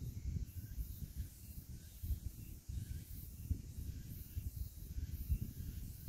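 Wind gusting on the microphone with an uneven low rumble, over faint high chirps or fizzing that recur about once a second from the mudflat surroundings.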